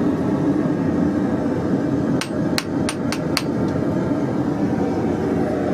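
Five quick hammer blows on hot steel, a little over two seconds in, hot-cutting part of the bar off. A steady rushing noise runs underneath.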